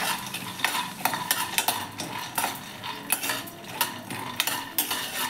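Metal spoon stirring raw peanuts around a pan with a little oil: irregular scraping of the spoon on the pan and the clatter of nuts tumbling, several strokes a second.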